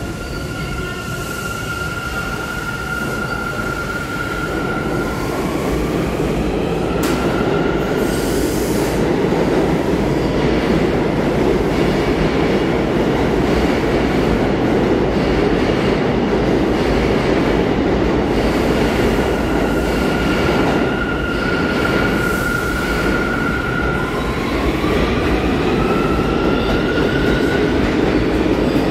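New York City subway train running through the station: a loud, steady rumble of wheels on rails that builds over the first ten seconds. Over it a high whine holds one pitch and then rises, twice, near the start and again about two-thirds through.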